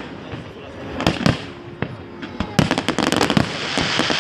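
Fireworks display: scattered bangs of bursting shells, then from about two and a half seconds in a dense run of rapid crackling reports with hiss.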